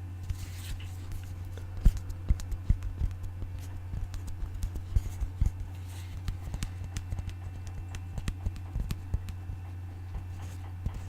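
Fingers tapping on an object in quick, irregular taps, over a steady low hum.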